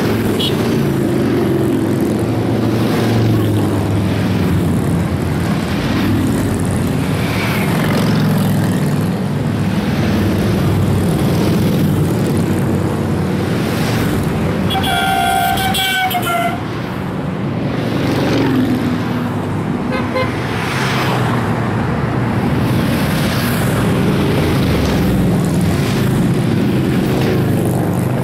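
A steady stream of cruiser and touring motorcycles riding past, their engines rising and falling as each bike goes by. About halfway through, a horn toots once for about a second and a half.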